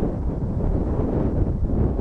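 Steady low rumble of a Boeing 767-300ER's jet engines as it rolls out along the runway after landing, mixed with wind buffeting the microphone.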